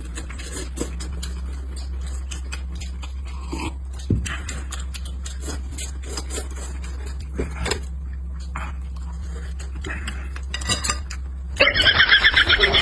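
Kitchen sounds: cutlery and dishes clinking, with scattered knocks over a steady low hum. Near the end comes a fast run of about ten sharp, bright strikes in a second.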